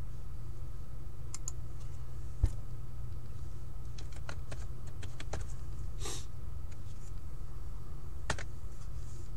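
Typing on a computer keyboard: sparse, irregular keystrokes over a steady low hum, with one sharper knock about two and a half seconds in.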